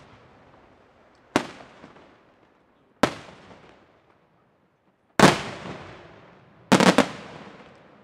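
Aerial firework shells bursting as a series of sharp bangs, each trailing off in a long echoing decay. There are single reports about a second and a half in and again about three seconds in, a heavier one past five seconds, and a quick cluster of three near the end.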